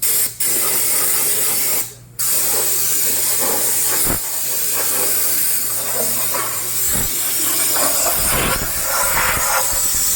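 High-pressure cleaning jet hissing as it sprays the Komatsu 6D125 engine block. It stops briefly about two seconds in, then runs steadily.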